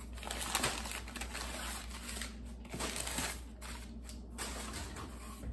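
Crumpled paper packing rustling and crinkling in irregular bursts as it is pulled out of a cardboard box.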